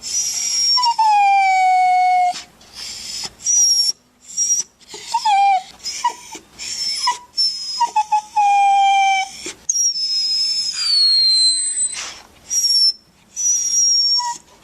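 A dog whining and crying in a long series of high-pitched whimpers, many of them falling in pitch. Two of the cries are drawn out, at the start and about ten seconds in, with shorter whines between.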